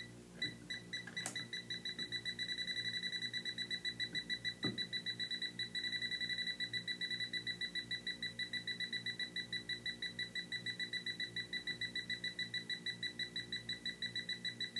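TLD.500 hydrogen leak detector beeping an alarm as it senses a small hydrogen leak of 11.1 grams per year from a calibrated leak source. The high-pitched beeps start slowly and quicken within a couple of seconds to a fast, even beeping of several a second.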